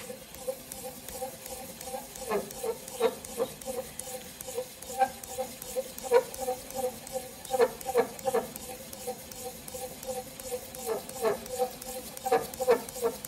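A hand-cranked dowel wrapped in sandpaper turns inside the pedal bushing of a Sling TSi, squeaking and rubbing in a steady rhythm of a few squeaks a second with light clicks. It comes and goes in louder spells as the crank is turned.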